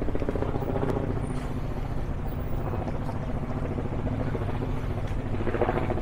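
Street traffic: a steady low engine rumble from passing or idling vehicles.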